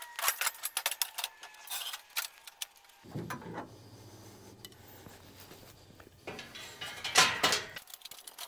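Aluminium motorcycle ramp sections clanking and rattling as they are handled and set on a pickup's tailgate, with a louder clatter about seven seconds in. A low steady hum runs underneath through the middle.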